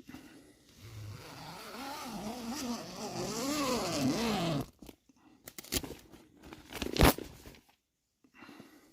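A wailing, voice-like sound over a rising hiss, its pitch swooping up and down several times for about four seconds, then stopping abruptly. A few sharp clicks and one loud knock follow near the end.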